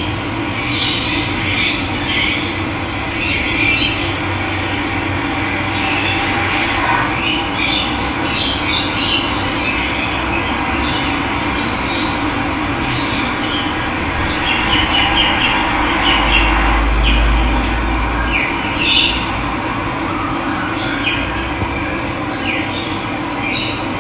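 Running water rushing steadily, with many small birds chirping and calling over it. A low rumble joins for about two seconds past the middle.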